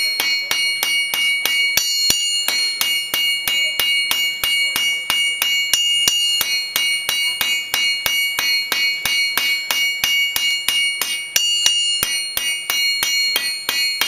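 Blacksmith's hand hammer striking red-hot round steel stock on an anvil, in a steady rhythm of about three blows a second. The anvil rings after each blow.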